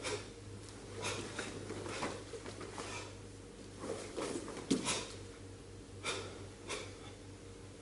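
Short sharp exhaled breaths and the snap of cotton karate uniforms from two karateka, roughly one with each block, punch and kick of a stepping combination, over a low steady hum.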